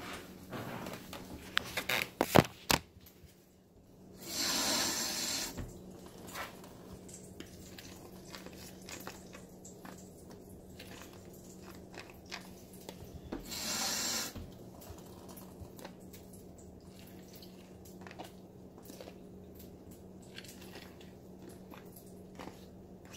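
Kitchen work sounds: a few sharp knocks about two seconds in, then two short bursts of hissing about nine seconds apart, with faint clicks and a steady low hum under them.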